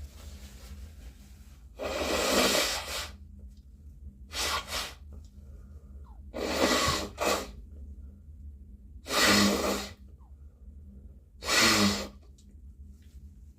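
A person with a cold sneezing repeatedly: four forceful sneezes a few seconds apart, the first the longest, with a shorter pair of breaths or sniffs between the first and second.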